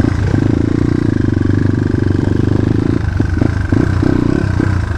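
A dirt bike engine running under throttle as the bike is ridden, a fast steady pulsing note. The note falls back about three seconds in and picks up briefly again near the end.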